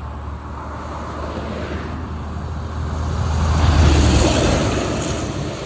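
A car passing by on the road, building to its loudest about four seconds in and then fading.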